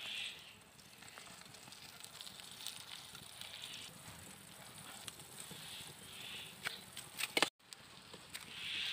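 Egg frying in a small frying pan over a wood fire, a faint steady sizzle, with a metal ladle clinking against the pan as noodles are spread over the egg, loudest about seven seconds in.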